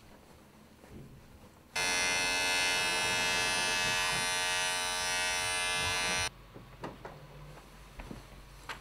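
A small electric device buzzing steadily for about four and a half seconds, switched on and off abruptly, with a few faint clicks before and after.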